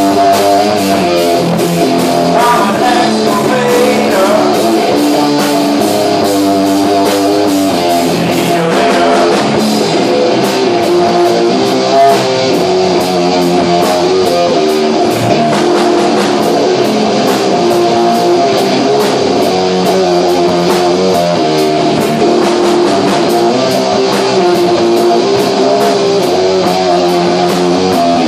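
Rock band playing live: electric guitars over a drum kit, with drum and cymbal hits keeping a fast, even beat.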